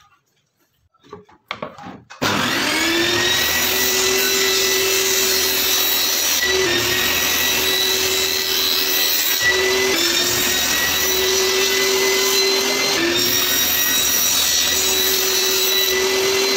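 A few faint handling knocks, then a table saw switches on about two seconds in, spins up and runs with a steady high whine. Its pitch sags briefly three times as the blade takes load cutting a wooden panel on a crosscut sled.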